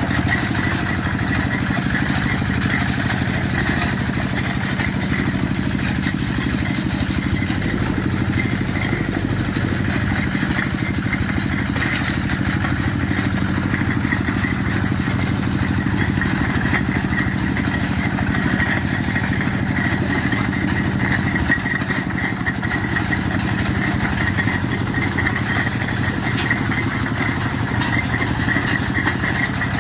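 Diesel engine of a Quick G1000 two-wheel hand tractor running steadily, with a rattling clatter over the engine note.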